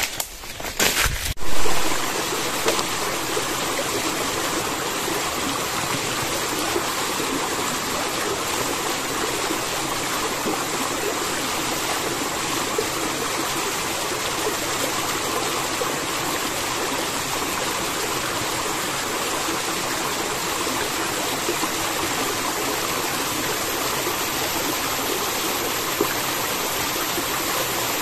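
A shallow, rocky forest stream, its water running steadily over stones. A few knocks in the first two seconds, the loudest about a second and a half in.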